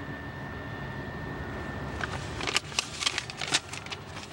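A sheet of paper being handled, rustling and crackling in a quick cluster of crisp sounds from about two seconds in, over a steady low car and traffic rumble. A faint steady high whine cuts off just before the rustling starts.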